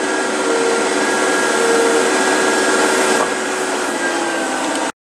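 Steady running of a farm loader's engine and hydraulics, with the hiss of oats pouring from the raised bucket onto the grain heap. The hiss eases a little about three seconds in, and the sound cuts off abruptly just before the end.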